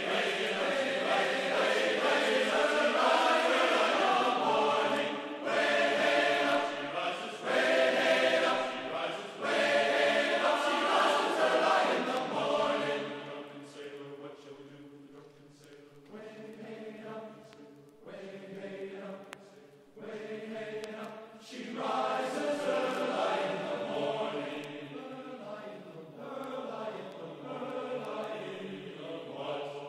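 Background music of choral chanting: several voices hold long, sustained notes. It softens for several seconds in the middle, then swells again.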